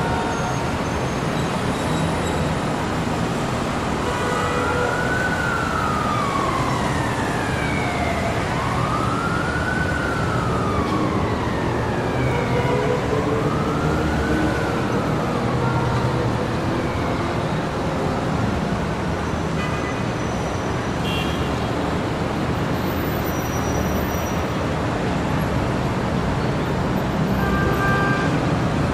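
Steady city traffic noise, with an emergency vehicle's siren wailing in three slow rise-and-fall sweeps from about four seconds in to about halfway through. Short car-horn tones sound later, the clearest near the end.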